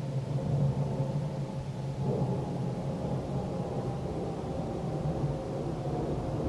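Distant outdoor emergency warning siren, about 1.4 miles off, holding a steady, slightly wavering tone during a routine siren test, over a low rumble.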